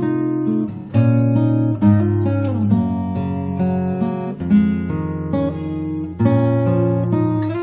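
Morris W40 acoustic guitar played: chords struck and left to ring, changing about once a second, with one note sliding down in pitch midway.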